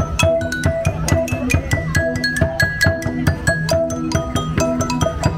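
Music of struck, tuned notes in a steady rhythm: a Central Highlands stone lithophone (đàn đá) playing a melody that climbs and then falls back, over a repeating low figure and drum strokes.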